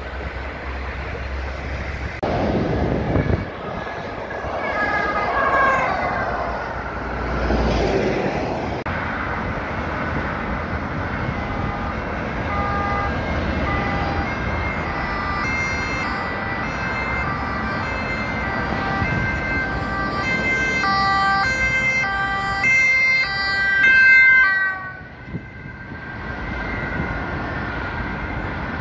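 Motorway traffic. From about twelve seconds in, the two-tone sirens of several emergency vehicles alternate high and low and overlap one another. The sirens cut off sharply about four seconds before the end.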